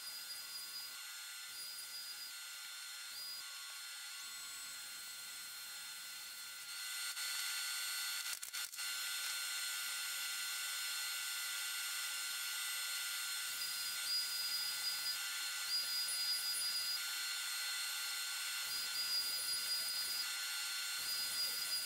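Makita plunge router running at speed with a steady high whine as its bit planes the face of a wooden tree slice on a router flattening sled. It gets louder about seven seconds in, with a brief break shortly after.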